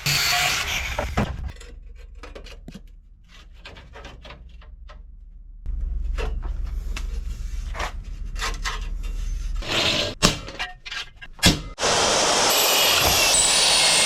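Power-tool cutting in a garage workshop, with loud bursts of cutting noise about a second and a half long at the start and again near the end. In between come scattered knocks and clatter of parts being handled, over a low rumble.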